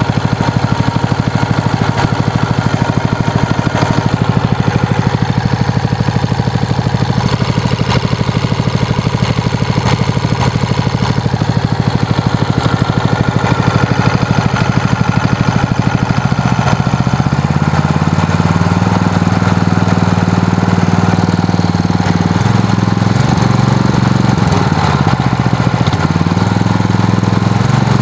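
Lifan KP230 8 hp single-cylinder four-stroke petrol engine running steadily, with the valve clatter heard over the muffler. About two-thirds of the way in, its note shifts and wavers a little.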